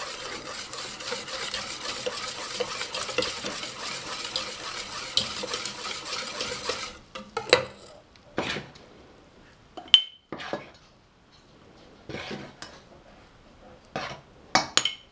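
Wire whisk beating flour into pancake batter in a stainless steel pot, steady whisking for about seven seconds that then stops abruptly. A few separate clinks and knocks of utensils follow, including one sharp metallic clink about ten seconds in.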